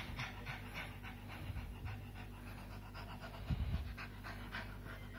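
Small dog panting quickly while it plays at biting a leather glove.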